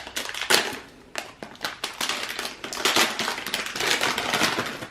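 Crinkly plastic toy packaging being handled and torn open, a dense run of irregular rustles and crackles.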